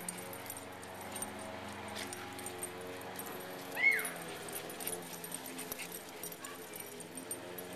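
A puppy yelps once, a short high cry that rises and then falls, about four seconds in, during rough play.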